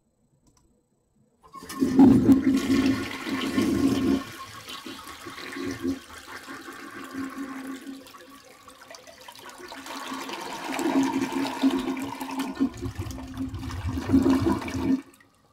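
Toilet flushing: rushing, swirling water with a steady low hum. It is loud at first, eases off midway, swells again, then cuts off suddenly near the end.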